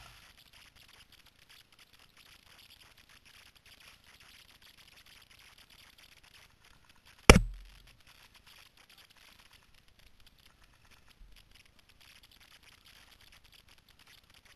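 Faint steady outdoor hiss, broken about halfway through by a single sharp, loud knock that dies away in about half a second; a faint click follows a few seconds later.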